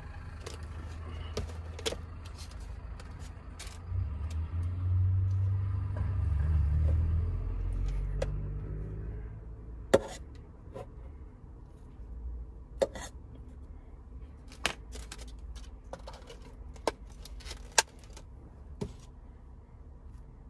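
Scattered light clicks and knocks of kitchen utensils and food being handled during smoothie prep, the sharpest knocks spaced a second or two apart in the second half. A low rumble swells and fades in the first half.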